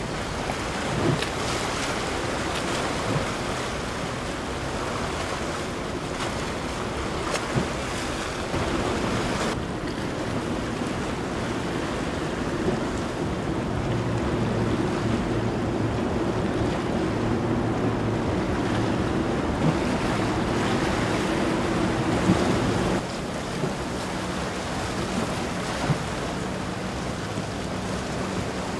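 Wind buffeting the microphone over the wash of waves and ship wake. A steady low boat-engine hum runs through the middle and changes to a different low hum about three-quarters of the way in.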